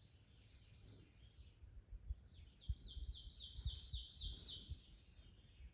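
A songbird singing: a few scattered high notes in the first second or so, then a fast run of repeated high notes from about two seconds in, lasting about two and a half seconds. Dull low thumps sound underneath.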